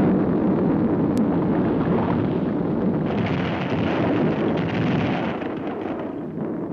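Cartoon sound effect of a volcano erupting: a loud, continuous rumble that eases a little near the end.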